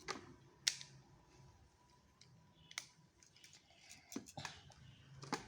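Plastic Lego bricks clicking as pieces are picked up and pressed together: a handful of separate sharp clicks with pauses between them.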